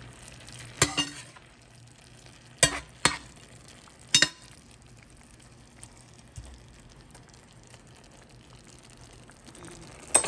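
A spatula clanking and scraping against a stainless steel pan while stir-fried mung bean sprouts and beef are tossed, over a faint sizzle. Several sharp clanks in the first half, then quieter stirring, and one more clank at the very end.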